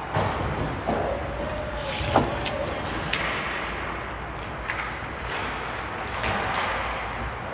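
Ice hockey play in front of the goal: skate blades scraping the ice and sticks and puck clacking. The loudest is a sharp knock about two seconds in, with further scrapes and clacks about three, five and six seconds in.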